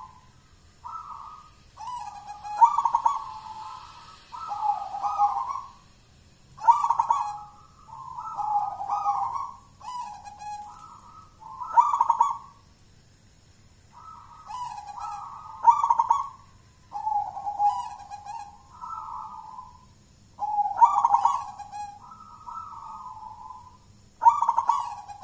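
Local Javanese zebra dove (perkutut lokal) singing its cooing song: phrase after phrase of low, rolling coos, each lasting one to two seconds, with short pauses between them.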